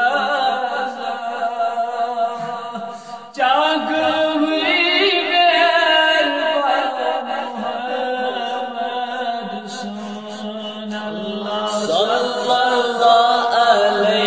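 A man chanting a durood (Islamic salutation on the Prophet) in long, wavering sung phrases; a new, louder phrase starts abruptly about three and a half seconds in.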